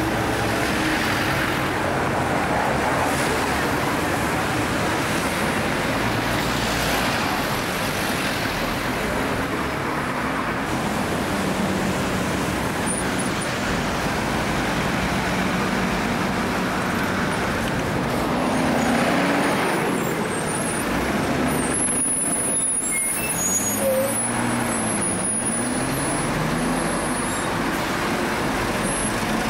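Busy city street traffic with Routemaster double-decker buses and black cabs driving past, their diesel engines rising and falling in pitch as they pull away and change gear.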